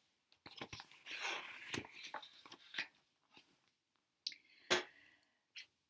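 A paperback picture book being handled and its page turned: a soft paper rustle, then a few small clicks and taps near the end.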